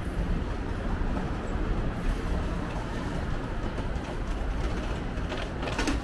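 Steady low rumble of city street ambience, mostly distant road traffic.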